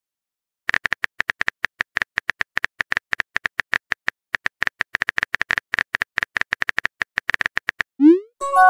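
Texting-app keyboard typing sound effect: rapid, sharp clicks for about seven seconds as a message is typed. Near the end comes a short rising whoosh and a brief chime as the message is sent.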